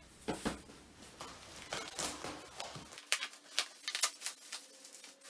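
Plastic bubble-wrap packaging being pulled open by hand, crinkling in irregular sharp crackles that come thicker after about three seconds.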